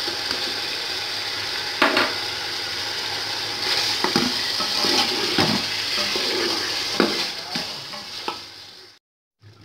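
Beef and masala sizzling in a cooking pot while a spoon stirs it, knocking and scraping against the pot several times. The sizzle fades away and cuts off near the end.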